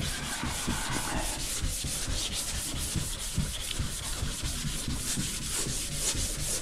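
Wet-sanding by hand: 220-grit sandpaper on a small hand block scrubbing back and forth over primer on a car's fiberglass roof in quick, steady strokes. The primer is being blocked out, cutting through a guide coat to show the low spots.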